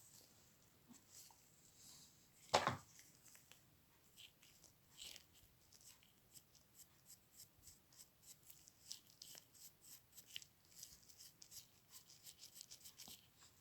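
Faint quick rubbing strokes of a wipe across a camera lens element, with one louder knock from handling the parts about two and a half seconds in.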